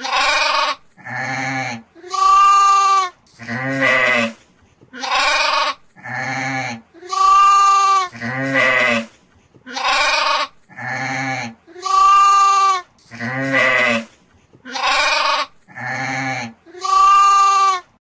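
Sheep bleating over and over: about fourteen loud, drawn-out bleats, each under a second long with short gaps between them, in a repeating pattern.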